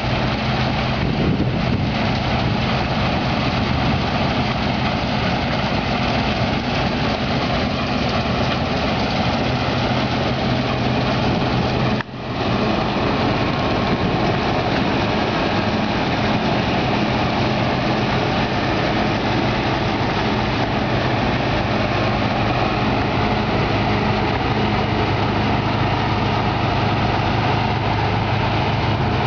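New Holland TC56 combine harvester running steadily while harvesting, its engine and threshing machinery giving a constant loud noise with a steady low hum. The sound briefly cuts out about twelve seconds in.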